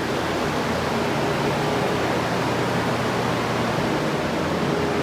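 Dozens of drying fans and a large dehumidifier running at once, drying out a flooded building: a loud, steady rush of air with a faint hum under it.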